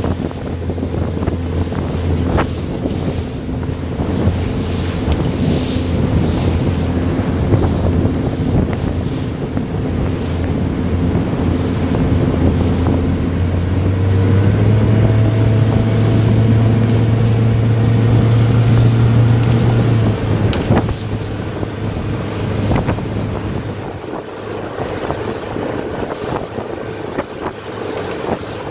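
Boat engine running steadily. About halfway through it speeds up, holds the higher speed for several seconds, then drops back. Wind buffets the microphone throughout.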